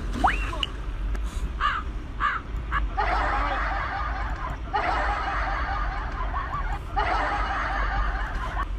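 Laughter in three long stretches, after a quick rising whistle near the start and a few short chirps.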